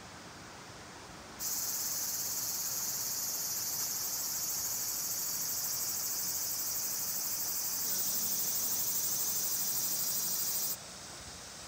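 A chorus of summer insects: a steady, high-pitched shrill chirring. It starts abruptly about a second and a half in, shifts a little lower near eight seconds, and cuts off suddenly shortly before the end.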